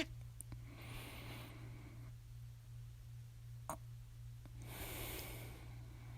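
A person breathing in and out twice between bouts of hiccups, with one small, sharp hiccup a little past halfway. A steady low electrical hum runs underneath.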